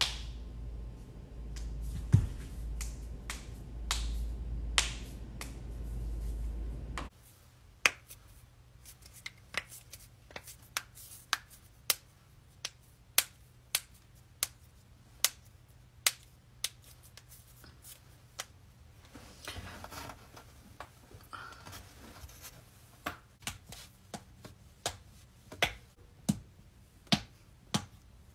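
Joints cracking: a long series of sharp pops, roughly one every half second to a second. A low rumble lies under the first seven seconds and stops abruptly.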